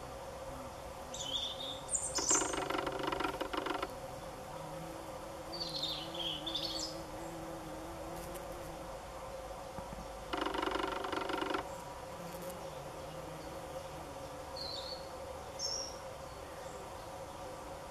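Rattling buzz of bumblebees flying in and out of their ground nest hole, loudest in two bursts of a second or two, about two seconds in and again about ten seconds in, over a steady hum. A robin sings short high phrases now and then.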